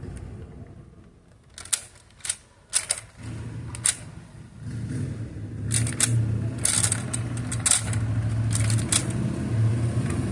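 Fisher-Price Imaginext toy rescue helicopter: a few sharp plastic clicks, then from about four and a half seconds its main and tail rotors spin with a steady low whirring, with more clicks on top.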